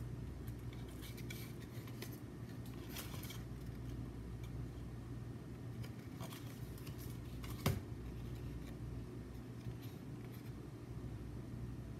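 Paper cards and tissue paper being handled, giving a few short, faint scratchy rustles over a steady low hum. One sharp tap about two-thirds of the way through is the loudest sound.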